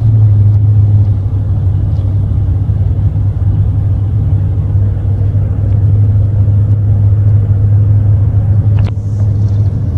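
Steady low rumble of a vehicle's engine and tyres heard from inside the cab while it cruises along a highway, with one short click near the end.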